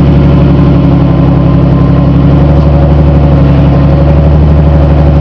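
V6 Ford Mustang idling steadily, just after starting up, through a 2.5-inch H-pipe cat-back exhaust with dual Flowmaster mufflers; loud, with an even engine note that holds steady and is not revved.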